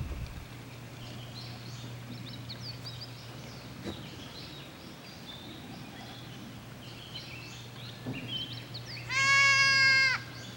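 A goat bleats once near the end, a single steady-pitched call of about a second, the loudest sound here.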